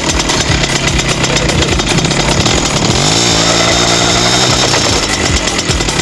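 Romet Pony 301 moped's small two-stroke engine running hard under a burnout, the rear wheel spinning on the dirt; about halfway through it revs up, its pitch rising and holding for over a second before dropping back.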